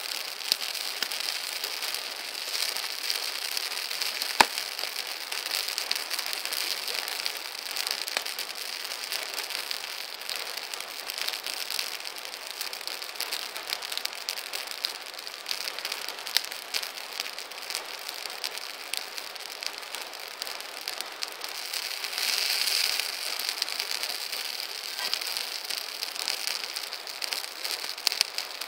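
Campfire of burning wood crackling, a steady hiss scattered with many small pops, with one sharp louder pop about four seconds in. A little after twenty seconds the hissing swells for a second or two.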